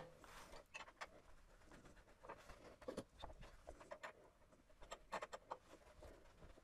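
Near silence with faint, scattered clicks and taps, a few in quick clusters: small handling sounds as the wooden box is taken off the lathe chuck and remounted reversed.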